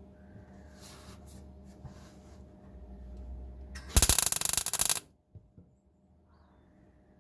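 MIG welder laying a tack weld on a steel floor panel: a loud, crackling buzz about four seconds in that lasts about a second and stops sharply. Before it come faint rubbing and handling sounds as the panel and torch are positioned.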